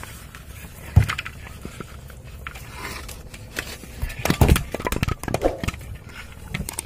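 Scattered knocks and thumps of a freshly caught hilsa flapping against a wooden boat deck: one sharp thump about a second in, then a cluster of quick knocks about four and a half seconds in.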